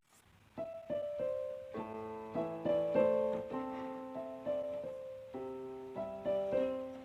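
Background music: a soft piano melody of single sustained notes that fade away. It begins about half a second in, after a sudden cut from louder music.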